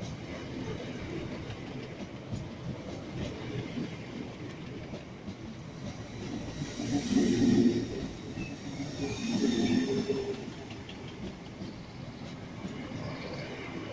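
Class 442 electric multiple unit passing along a station platform, its wheels rumbling and clicking over the rails. The sound swells twice, about halfway through and again a couple of seconds later, with a hiss riding on top.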